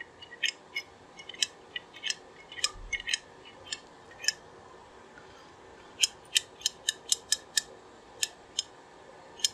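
Light, irregular metallic clicks from a spool valve and its spring being worked in their bore in a 200-4R transmission valve body. There is a scattered run of clicks over the first four seconds and a quicker cluster about six seconds in.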